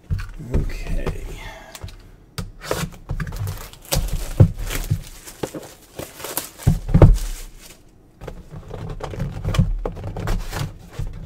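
Trading-card boxes, packs and wrappers being handled and moved around on a tabletop: irregular knocks and thunks with some crinkling.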